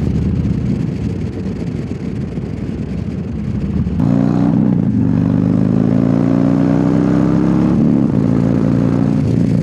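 Harley-Davidson Road Glide V-twin running through a Bassani exhaust on the road. For the first few seconds the engine is on light throttle. About four seconds in the throttle opens and the pitch climbs as the bike accelerates, with a brief break near the end as it shifts gear.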